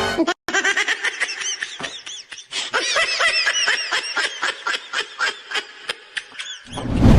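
High-pitched, rapid giggling: many quick notes, each rising and falling, like sped-up laughter. Loud comic music cuts in just before the end.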